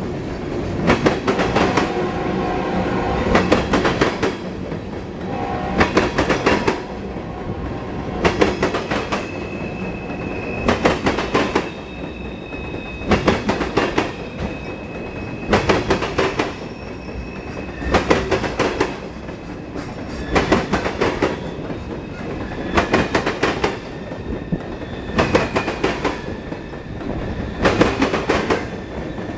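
Freight train of tank cars rolling past, the wheels clacking over the rail joints in a cluster of clicks about every two and a half seconds as each pair of car trucks goes by, over a steady rolling rumble. A faint high wheel squeal comes and goes between the clusters.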